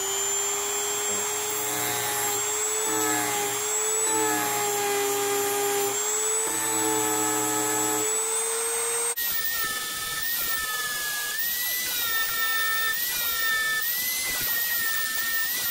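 Handheld rotary tool with a sanding drum running steadily, sanding the filter screen off a Subaru STI side-feed fuel injector's tip, its whine wavering as the part is pressed to the drum. About nine seconds in the pitch changes abruptly and keeps wobbling under load.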